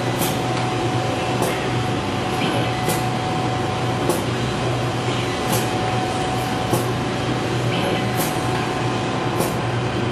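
Automatic soldering machine running: a steady mechanical hum with a faint constant whine, and a short sharp high tick or hiss repeating about every second and a quarter as the machine cycles.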